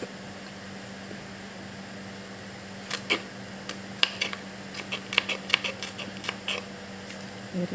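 Kitchen knife slicing garlic cloves on a plastic cutting board: irregular sharp taps of the blade on the board, starting about three seconds in. A steady low hum runs underneath.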